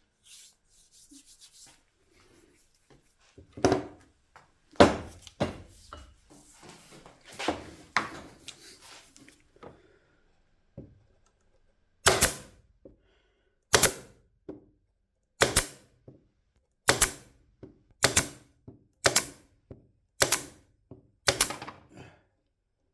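Bench tool work: a few seconds of scattered handling clicks and rustling, then a regular run of sharp clicks, about one every second and a half.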